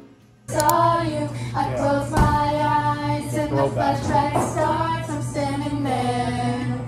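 Women's and girls' voices singing karaoke together over music, starting about half a second in after a brief hush.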